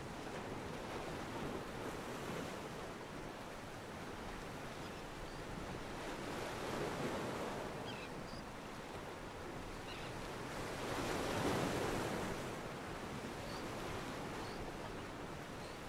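Ocean water washing and lapping against a pier, an even wash that swells twice, around the middle and more strongly about three-quarters of the way through.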